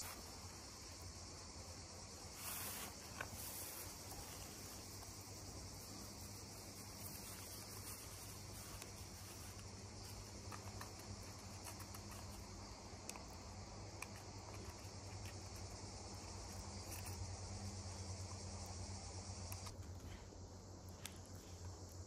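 Faint, steady high-pitched chirring of insects, with a low hum beneath. The insect sound drops away abruptly near the end, leaving a few faint clicks.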